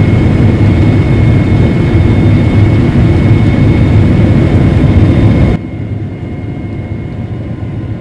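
CLAAS Lexion 8800 combine harvester running while emptying its grain tank, augers moving grain: a loud steady drone with a faint high whine. About five and a half seconds in it cuts suddenly to a quieter, muffled hum of the combine heard inside the cab.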